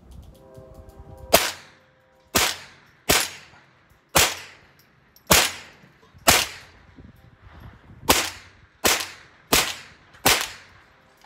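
Ten semi-automatic shots from a Tippmann M4-22 .22 LR rifle, fired at about one a second with a short pause midway. Each crack trails off in a brief echo.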